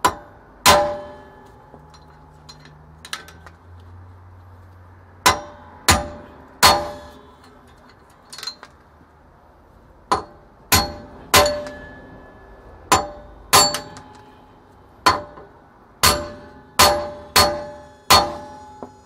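Steel hammer striking the wheel studs in a 2016 Toyota Corolla's rear drum-brake hub, driving the old studs out. Sharp metal-on-metal clangs that ring briefly, about fifteen blows at uneven intervals, coming quicker in the second half.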